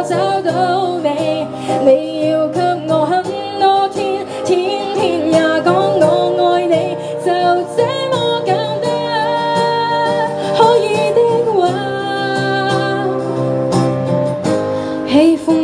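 A woman sings a Cantopop song live into a microphone, accompanying herself by strumming an acoustic guitar.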